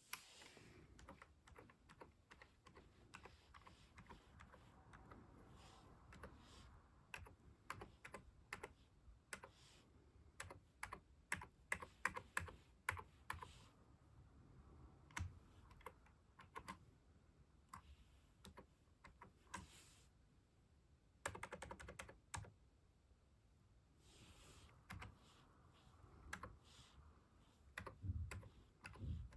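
Typing on a computer keyboard: irregular runs of key clicks with short pauses between bursts.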